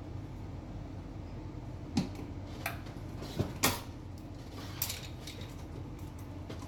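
A few sharp clicks and light knocks, about two seconds in, then around three and a half and near five seconds, from hand tools handling a cut-in electrical switch box, over a steady low hum.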